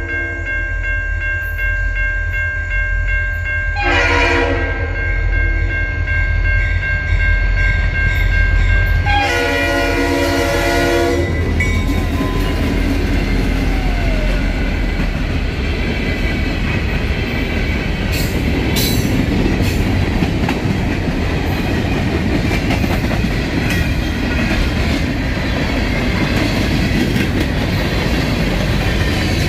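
A freight train's diesel locomotive horn sounds three times in the first dozen seconds, over the locomotive engine's steady rumble. The train then rumbles past with its wheels rolling on the rails.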